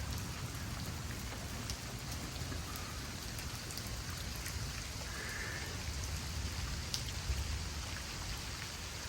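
Heavy, steady rain falling, with scattered sharp ticks of single drops striking nearby surfaces.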